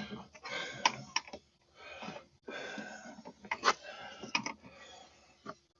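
Light plastic clicks and rustling from handling a car door's trim clips and wiring, with about five sharp clicks spread through.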